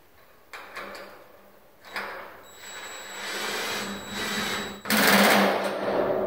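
Cordless drill running in a few short runs, driving the nut and bolt that clamp an alignment fin around a stainless steel stack pipe, loudest about five seconds in, with a couple of light metal clicks before it.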